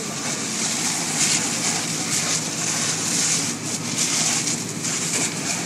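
Fire engine running at a working fire, a steady low drone under a loud, unbroken hiss.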